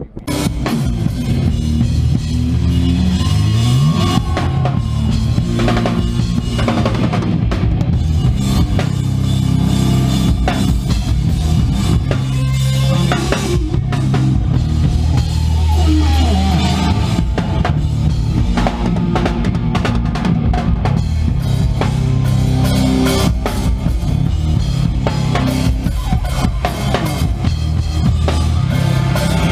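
Live hard rock band playing loud, with a pounding drum kit and heavy bass guitar.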